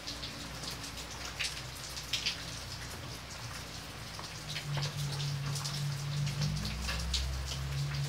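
Steady rain falling on wet brick paving, many separate drops tapping and splashing over a constant hiss. A low hum runs beneath and grows stronger in the second half.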